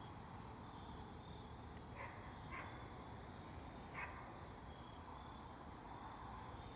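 A campfire burning quietly with a low steady rumble and a few faint crackles. Three short barks come through about two, two and a half and four seconds in.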